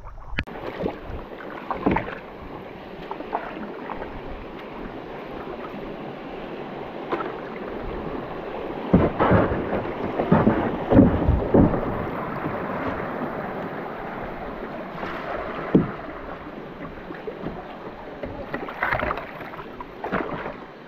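Kayak paddling on a river: a steady rush of water with irregular paddle splashes and knocks, heaviest about halfway through and again near the end.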